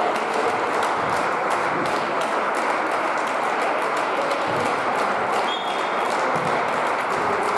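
Volleyball players clapping their hands while lined up along the sideline: many sharp, irregular claps over a steady background din.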